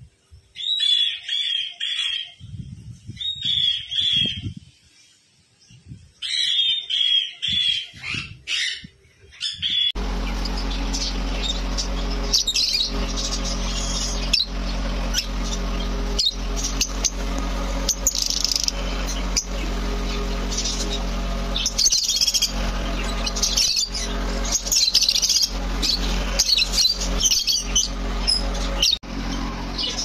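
A sun conure calling, about four separate calls in the first ten seconds. Then it switches suddenly to a flock of lovebirds chirping without pause over a steady hum.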